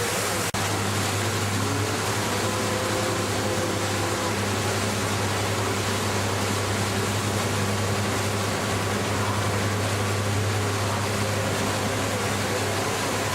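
Jet ski engine running at a steady pitch with a rushing noise of water and wind, and a brief dropout about half a second in.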